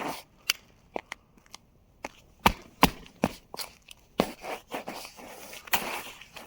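Footsteps crunching on icy sleet: a run of sharp, irregular crackles and snaps, a couple to a few a second.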